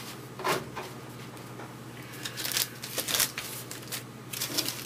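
Stacks of baseball trading cards being handled and slid about on a tabletop: short scattered rustles and scrapes of card stock, in three groups.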